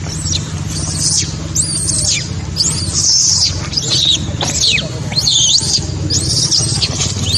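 Baby macaque squealing: a run of high-pitched squeals that arch and slide down in pitch, about one or two a second.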